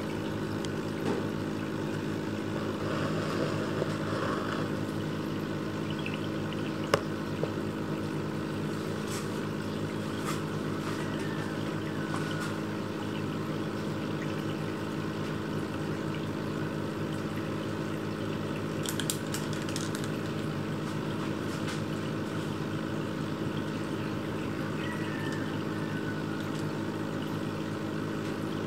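Aquarium filter pump running: a steady motor hum under continuous trickling, pouring water, with a few faint clicks and one sharp click about seven seconds in.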